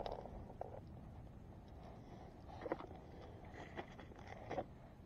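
Faint handling noise from a body-worn camera: a few scattered clicks and rustles of clothing against the microphone, over a low steady rumble.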